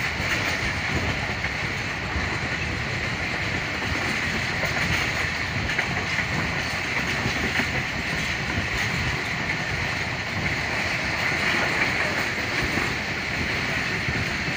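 Passenger train running at speed, heard from a coach window: a steady rumble of the coach's wheels on the rails.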